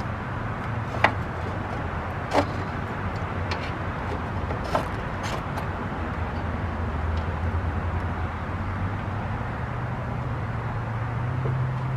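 Hands working parts and vacuum hoses in a Subaru WRX engine bay: a few sharp clicks and taps, the loudest about one and two and a half seconds in, over a steady low hum.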